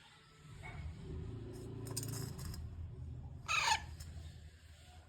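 Pet parrot giving one short, harsh squawk about three and a half seconds in, over a low rumble.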